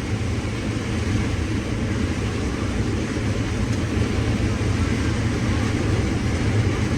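Combine harvester running steadily while cutting corn, a constant low machine hum with a wash of noise over it.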